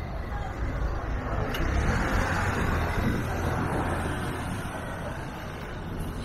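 A motor vehicle passing on the street, its engine and tyre noise swelling about two seconds in and then fading.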